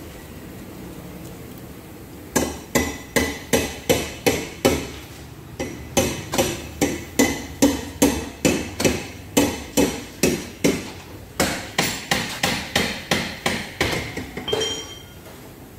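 Hammer striking metal in three runs of steady blows, about three a second, each with a short metallic ring, separated by brief pauses.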